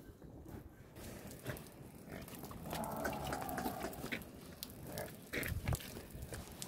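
Jafrabadi water buffalo calling once, a drawn-out call about three seconds in, with scattered knocks and scuffs around it.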